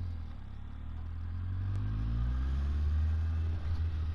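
2006 Kawasaki Z750's inline-four engine through its quiet stock exhaust, pulling away with the pitch rising for about two seconds, then holding steady.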